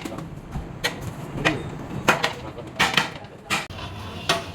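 Metal kitchen utensils clattering: about half a dozen sharp, irregular clacks over a low steady background hum.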